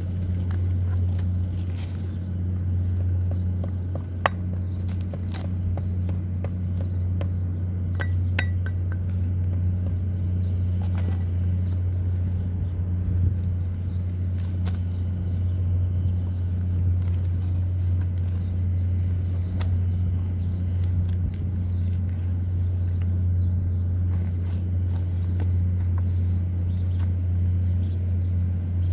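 A steady low machine hum, with scattered short clicks and knocks, one sharp knock about four seconds in and a small cluster around eight to nine seconds.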